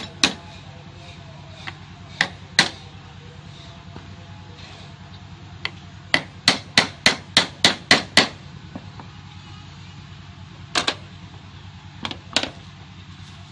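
A small hand hammer tapping on a tool set against a small wooden workpiece, in sharp, separate knocks. After a few single taps, a quick run of about eight taps comes about six seconds in, and a few more follow near the end.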